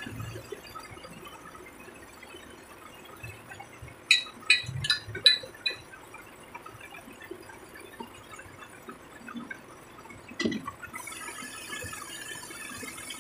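Metal clanking as tow gear is fitted under a lorry's front end: a quick run of about five sharp metallic clanks, then one more clank later. A faint steady high-pitched whine comes in near the end.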